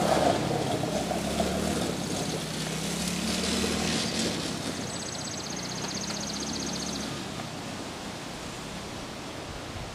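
Engine of a child's small youth ATV running, getting fainter as the quad moves away.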